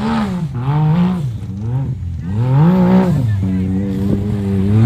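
Side-by-side buggy's engine revving hard in repeated surges as it churns through deep mud, the pitch climbing and dropping about once a second with the throttle.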